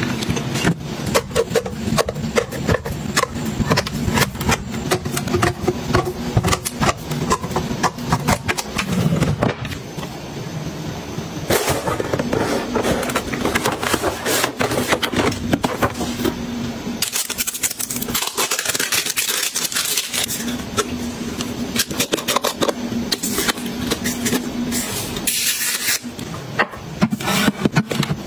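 Close handling sounds of restocking: a run of clicks and knocks as plastic bottles and packaged items are set onto shelves, with stretches of rustling as a cardboard box and packaging are opened.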